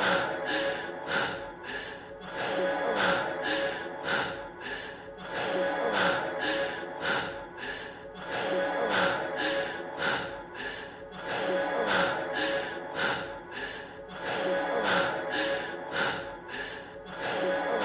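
A man's heavy breathing from a studio recording, quick breaths in and out about twice a second, repeating as a short loop. A faint held musical note sounds underneath.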